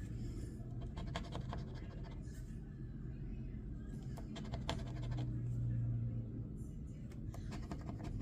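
Scratching the coating off a lottery scratch-off ticket in several short runs of quick strokes.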